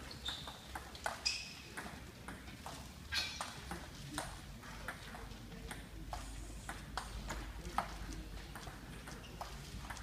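Table tennis rally: a celluloid ball clicking back and forth off the bats and the table in a quick, irregular series of sharp clicks.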